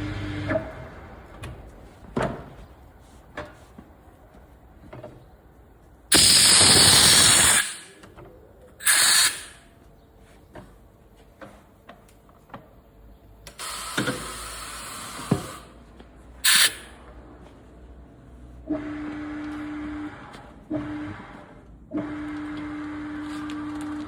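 Tyre-fitting work: several loud bursts of hiss, typical of compressed air, with scattered clicks and knocks between them, and a steady hum that comes in near the end with short breaks.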